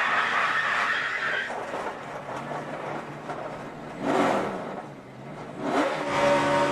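NASCAR Cup stock cars' V8 engines racing past on the track. One car swells past about four seconds in, and another comes up near the end.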